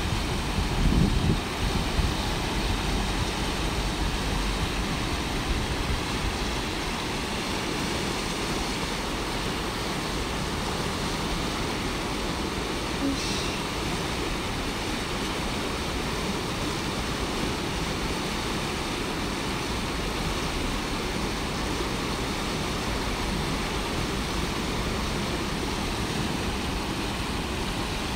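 River water rushing over shallow rapids, a steady unbroken noise, with a couple of low thumps in the first two seconds.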